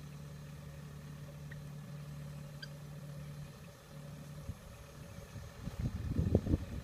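Engine of a distant farm machine running steadily as a low hum. From about four and a half seconds in, irregular gusts of wind rumble on the microphone and become the loudest sound.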